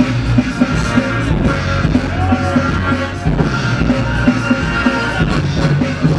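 Loud music with a steady beat, the kind played for a breakdance battle.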